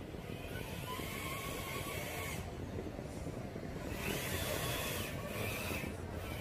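Electric motor and gear drivetrain of a Traxxas radio-controlled crawler truck whining as it drives, the pitch rising and falling with the throttle, with a hiss that swells twice.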